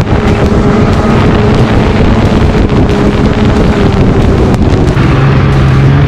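Snowmobile engine running steadily at trail speed, with wind rushing over the microphone. The engine note changes about five seconds in.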